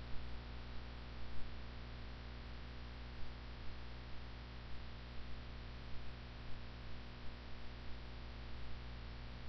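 Steady low electrical mains hum with a constant hiss, the background noise of the microphone and recording chain.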